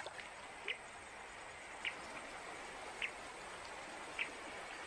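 A steady soft hiss of outdoor ambience, with a short, high chirp from a small calling animal repeating about once a second, four times.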